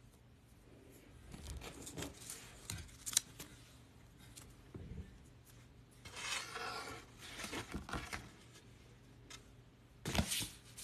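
Handling noise close to the microphone: scattered clicks and taps, rubbing and rustling about six seconds in, and a sharper cluster of clicks near the end.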